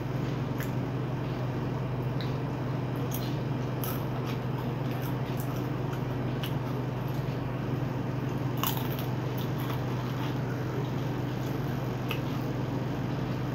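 Chewing a crisp fried snack (nimki), with a few sharp crunches scattered through, over a steady low hum.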